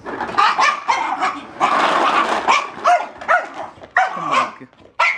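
A dog barking at a child's push toy in a quick run of about a dozen short barks, with a longer, denser stretch about two seconds in.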